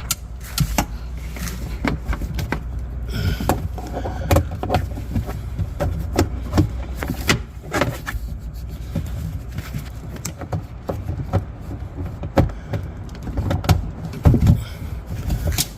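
Irregular clicks, taps and knocks of hand tools working at a plastic retaining clip inside a pickup's rear door, over a steady low rumble.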